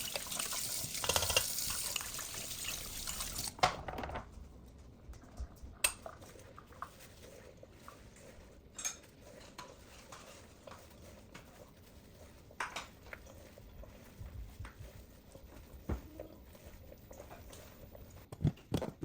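Water running from a kitchen tap, shut off a few seconds in, followed by scattered light clinks and knocks of dishes and utensils being handled.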